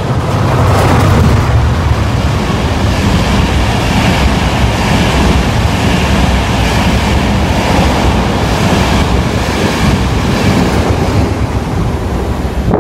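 A train passing at speed close by: a loud, steady rush of wheels and air with a deep rumble, the microphone buffeted by wind. It cuts off suddenly near the end.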